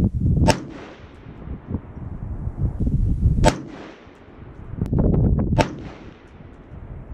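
Three rifle shots, about two to three seconds apart.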